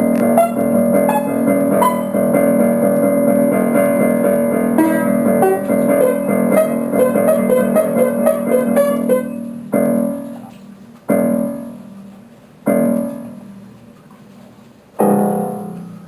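Piano music: a melody over held chords, then four single chords struck one at a time, each left to ring and fade.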